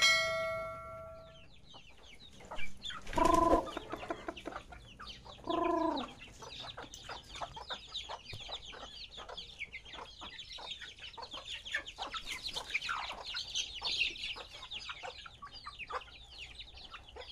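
Chicks peeping in a fast, continuous chatter while hens cluck as they forage. Two loud calls from a larger fowl come about three and six seconds in.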